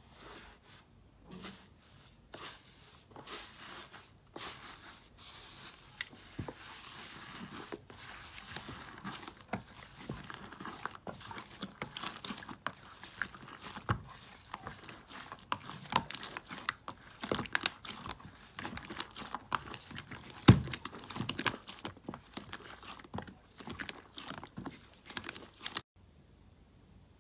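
Hands squeezing, poking and stretching slime, giving a dense run of small irregular crackles and pops, with one sharper pop about two-thirds of the way through.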